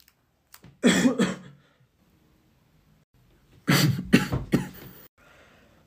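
A person coughing in two bouts: a pair of coughs about a second in, then a run of three or four coughs a little past the middle.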